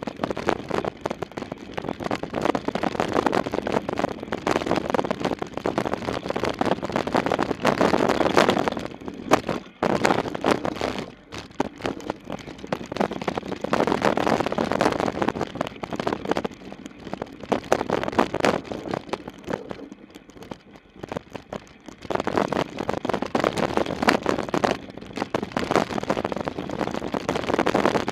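Mountain bike ridden fast down a dirt trail: tyres running on dirt with the bike rattling and clattering over bumps, the noise easing off briefly twice.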